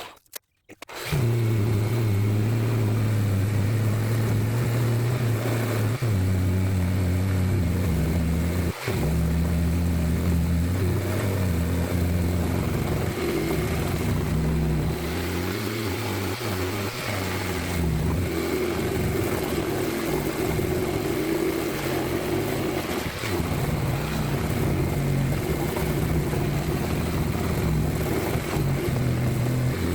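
Power sander running on the repaired wheel arch panel, a steady motor hum whose pitch shifts several times as it works.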